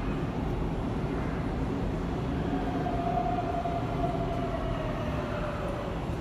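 Electric train standing at a station platform: a steady rumble of running equipment. From about two and a half seconds in, a faint whine slowly falls in pitch.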